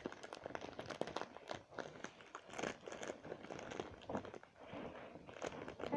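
Crinkling and rustling of packaging as a hand rummages inside a fabric Christmas stocking, a continuous run of small crackles and clicks.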